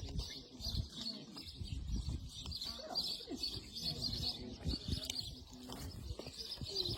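Birds chirping steadily, with low rumbling and soft knocks underneath.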